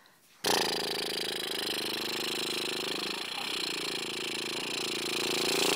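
A woman making a long, steady, engine-like buzzing noise with her mouth, one of the funny noises she makes at a baby. It starts abruptly about half a second in and holds steady with a brief wobble in pitch near the middle.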